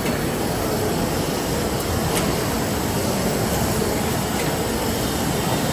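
Steady mechanical din of an automatic die cutting and creasing machine running in a busy exhibition hall, with faint ticks about every two seconds.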